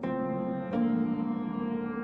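Soft ambient background music of sustained keyboard chords; a new chord sounds at the start and another comes in under a second later.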